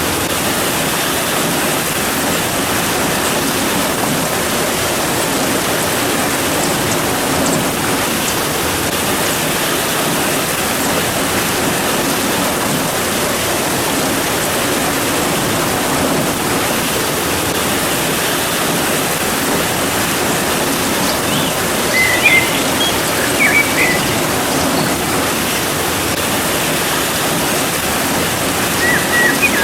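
Steady, dense rainfall, an even wash of noise. A few short high chirps come through about two-thirds of the way in and again near the end.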